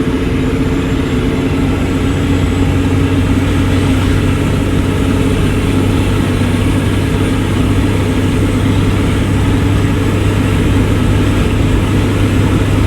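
12-valve Cummins turbo-diesel inline-six with an S363 turbocharger running steadily under load on a hill climb. A constant low drone grows a little louder about a second and a half in, then holds.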